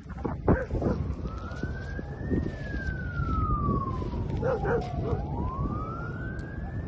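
A siren wailing: one tone that climbs, falls slowly for a couple of seconds, then climbs again near the end. A few short chirps come partway through.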